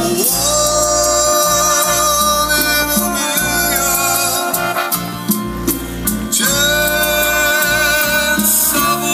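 A song with a singing voice played loud over a car audio system, with heavy bass.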